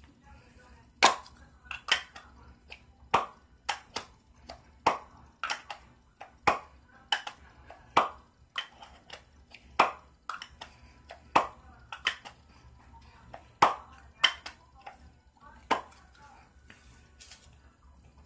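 Handling of a metal aerosol hairspray can: a long uneven series of sharp metallic clicks and taps, about one or two a second, each with a short ring.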